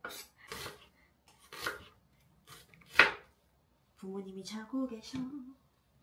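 Kitchen knife chopping an onion on a wooden cutting board: a handful of separate knocks, the loudest about three seconds in. A person's voice is heard briefly near the end.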